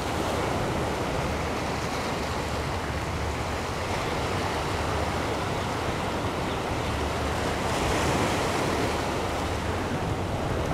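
Steady wash of ocean surf, mixed with wind.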